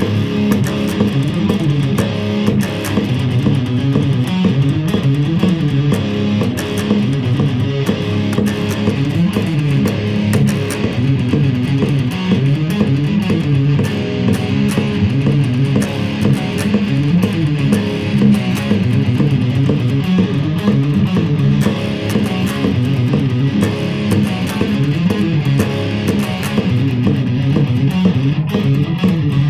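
Electric guitar played through a Zoom G1Xon multi-effects processor, a continuous run of strummed chords and single notes.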